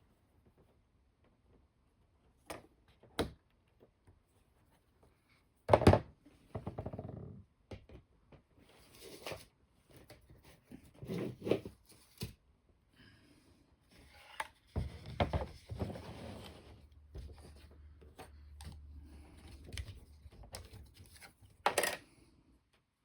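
Small tools and parts being handled at a model-building bench: scattered clicks and knocks, the loudest about six seconds in and near the end, with stretches of scraping and rustling in between.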